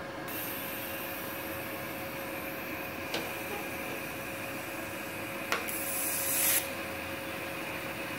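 Inverter welder TIG welding steel at about 50 amps: a steady hiss and hum with two sharp ticks, then a loud hissing burst about six seconds in as the arc is struck, settling into a quieter arc hiss.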